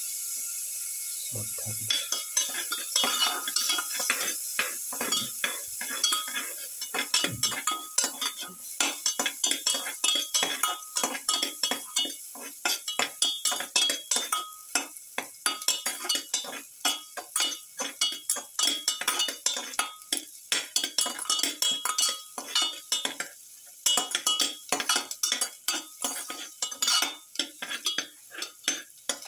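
Metal slotted spatula scraping and clinking against a steel pan in rapid irregular strokes as garlic cloves are stirred in hot oil, over a faint sizzle. The sizzle is heard alone for about the first two seconds before the stirring starts.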